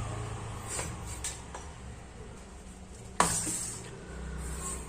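A few light clicks and, a little after three seconds in, one sharper knock of hard objects against each other or a hard surface, over a steady low hum.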